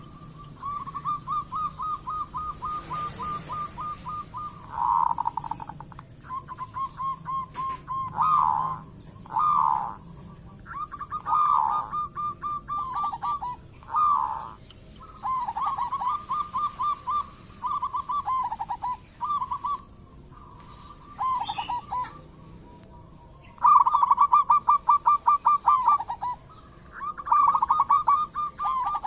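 Zebra dove (perkutut) singing: phrases of rapid staccato cooing notes, a few seconds each, with short pauses between. Brief high chirps from another bird come in over the song now and then.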